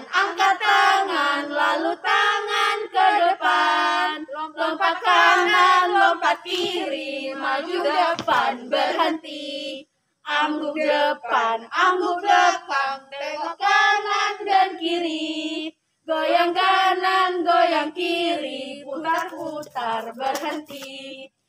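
A small group of young women singing an action song together in unison, voices only, with two short breaks about ten and sixteen seconds in.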